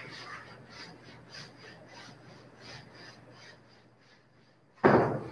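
Board duster rubbing back and forth on a whiteboard, about three short rasping strokes a second, as the board is wiped clean. The wiping stops, and near the end comes a sudden thump.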